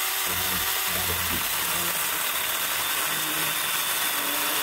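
Saker 4-inch cordless mini electric chainsaw running under load, cutting through a live fig tree branch: a steady motor whine and chain-through-wood hiss, the motor's pitch wavering as the chain bites.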